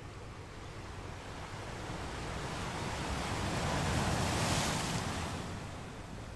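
Rushing noise like waves washing on a shore, swelling to its loudest about four seconds in and then fading.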